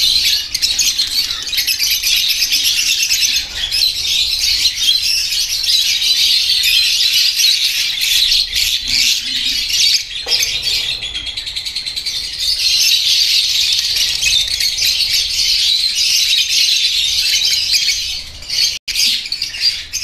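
Many lovebirds chattering and chirping together, a dense, continuous shrill chatter.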